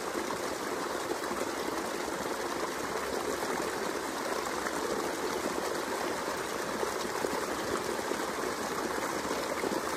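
A creek running steadily over rocks and small cascades, an even, unbroken water noise.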